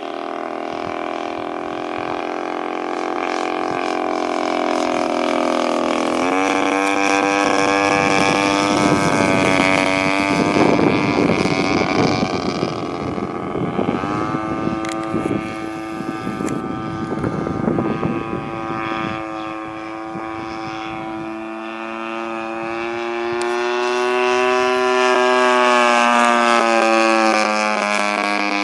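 DLE 20RA single-cylinder two-stroke gas engine and propeller of a 78-inch Tiger Moth model biplane, running in flight. Its steady buzzing tone steps up in pitch about six seconds in, then rises and falls several times as the throttle and the plane's position change.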